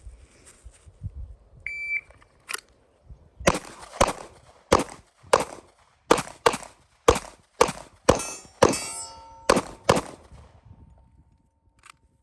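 Shot-timer start beep, then a rapid string of about a dozen pistol shots from a Glock 19 over some seven seconds, run as a timed drill.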